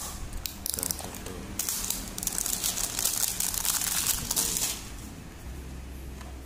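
Clear plastic shrink-wrap being peeled off a small cardboard e-liquid box and crumpled in the hand: a few short crinkles in the first second, then about three seconds of continuous crinkling that stops well before the end.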